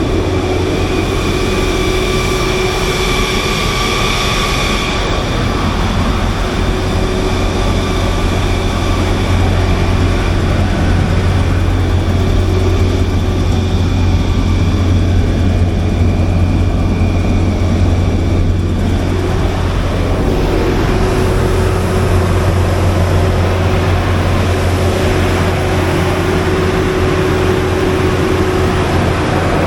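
400 kW Generac gas-fuelled standby generator running steadily with a loud, even low drone.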